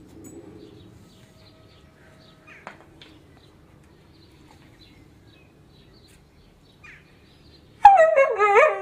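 A dog lets out a loud, wavering, howl-like whine lasting just under a second near the end.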